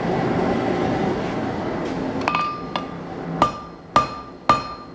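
Hammer blows on hot 410 stainless steel over an anvil. They start a little under halfway in, at about two a second, and each strike rings. Before the blows there is a steady rushing noise.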